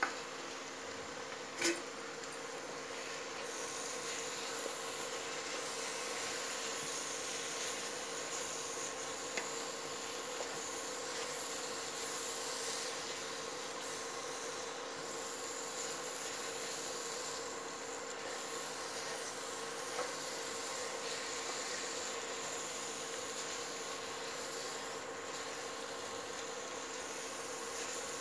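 Grated carrot halwa frying in ghee in a nonstick pan, a steady sizzle as it is stirred and scraped with a wooden spatula, with a knock of the spatula on the pan about two seconds in. A steady electrical hum from the cooktop runs underneath.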